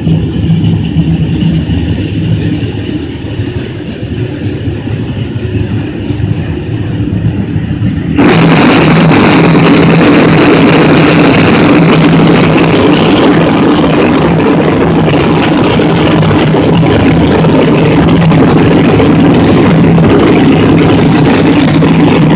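Corn flakes processing line machinery running with a steady low hum. About eight seconds in, a loud rushing hiss sets in suddenly and continues over the hum.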